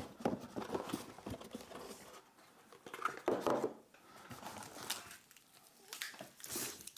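Speaker box being opened by hand: cardboard and packaging rustling and scraping, with light knocks and clicks and a louder rustle about three seconds in.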